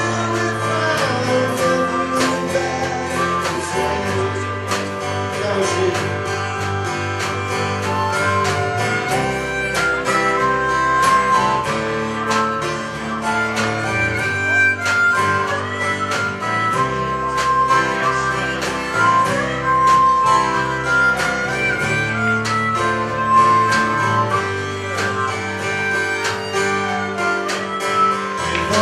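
Live acoustic band playing an instrumental break of a folk song: held lead melody notes over strummed guitar and a bass line, with no singing.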